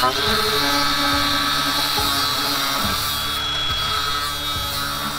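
Cut-off wheel grinder cutting through a steel shock mount bracket: a steady high whine over the rasp of the disc biting into metal, the pitch rising briefly as it comes up to speed at the start.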